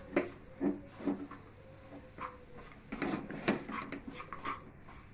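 Plastic spatula scraping and tapping against a non-stick pan in short, irregular strokes while crumbled khoa and nut powder are stirred.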